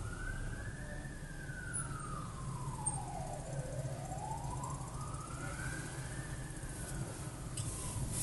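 An emergency vehicle's siren wailing, its pitch sweeping slowly up and down, peaking twice, about five seconds apart, over a low steady rumble of traffic heard from inside a car.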